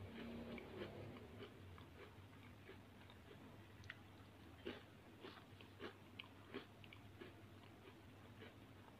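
Near silence: a faint low hum with scattered small crisp clicks and crackles, most of them in the middle, from mini chocolate sandwich cookies shifting and crumbling in an open palm.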